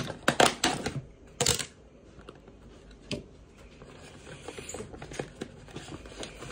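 Plastic food container of cheese cubes being handled: sharp clicks and knocks in the first second and a half and another about three seconds in, then soft rustling and light clatter as cheese cubes are picked out.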